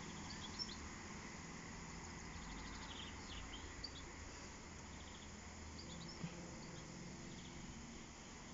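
Faint songbirds chirping and trilling now and then, short high calls scattered over a steady low background noise.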